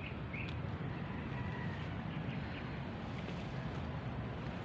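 Steady low rumble of wind and handling noise on the microphone.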